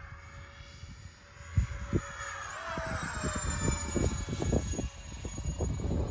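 RC model jet (X-Fly J-65) passing by: its high engine whine jumps and then falls in pitch as it goes past, about two and a half seconds in. Strong wind buffets the microphone with low thumps from about a second and a half on.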